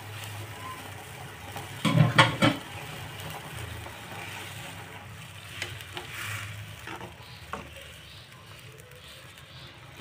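Fried tofu cubes tipped into a wok of simmering cabbage broth and stirred in with a spatula. A cluster of sharp knocks comes about two seconds in, and a few lighter clacks follow later over a steady hiss.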